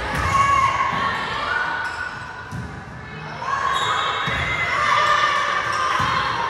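Volleyball play in a gym: a volleyball thuds several times as it is hit or bounces on the court, over voices calling across the hall.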